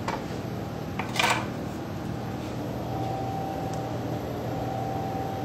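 Steady low hum of kitchen machinery, a fan or appliance motor running, with a faint high whine coming and going in the second half. About a second in there is a click and a short, noisy scrape, the loudest sound.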